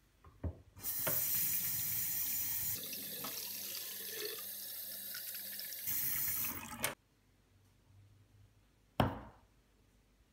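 Kitchen tap running a stream of water into a stainless steel sink for about six seconds, then stopping abruptly. About nine seconds in, a single sharp knock as a glass is set down on a stone benchtop.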